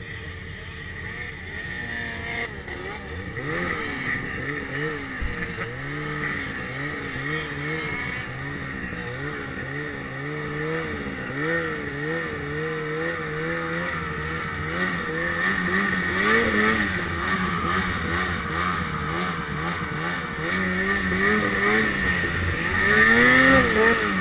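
Ski-Doo Summit XP 800 two-stroke snowmobile engine revving up and down while the sled is ridden through deep snow, its pitch rising and falling roughly once a second, at its loudest near the end.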